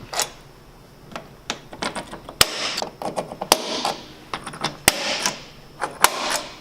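Sharp metal-on-metal clicks, each followed by a short scratch, about five times roughly a second apart: a rivet's sharp tip marking hole centres on a snowmobile tunnel.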